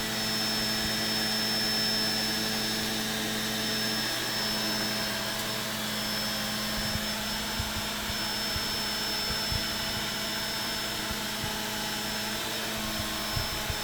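Vacuum cleaner running steadily on carpet: a constant motor and airflow noise with a thin high whine over it, and a few light knocks in the second half as it is pushed about.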